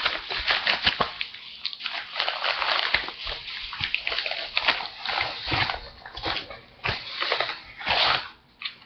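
Paper padded mailer being ripped open and pulled apart by hand, in a run of irregular tearing and crinkling rasps.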